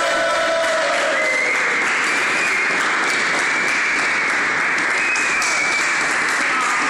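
A small group of people applauding steadily, with a high held tone running over the clapping.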